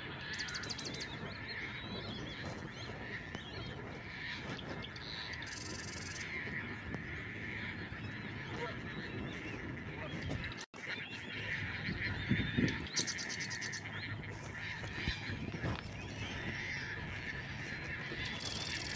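Marsh bird chorus: a continuous mix of other birds calling, with a high, rapid trill repeating about every six to seven seconds.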